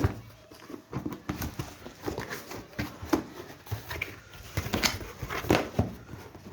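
Pages of a paperback book being handled and turned: irregular rustles, taps and short paper clicks.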